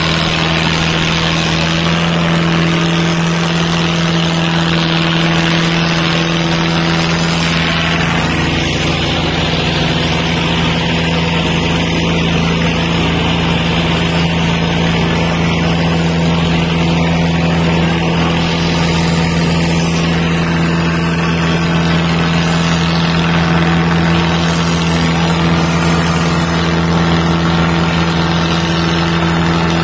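Diesel tractor engines running steadily and hard in a tochan tractor tug-of-war, pulling under load. The engine note shifts slightly about eight seconds in.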